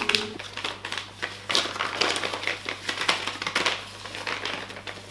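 Paper rustling and crinkling as a paper envelope is handled in the hands, a quick irregular run of small crackles.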